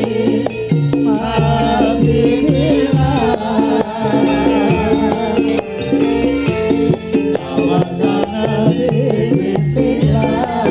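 Live Javanese sholawat-style band music: singers over kendang drums and gamelan-style percussion, with a steady high rattling tick keeping the beat.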